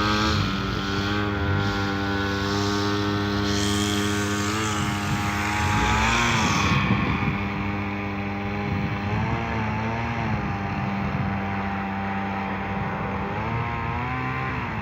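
Engine of a rice combine harvester running steadily, its pitch dipping briefly now and then as it takes load. A hiss of threshing and blowing runs with it for the first half and then stops.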